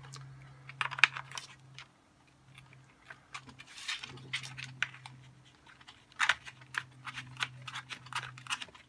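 Hard plastic parts of a 3D-printed robot arm clicking and rattling as they are handled and fitted together by hand, with a low steady hum underneath that stops about two seconds in and comes back a couple of seconds later.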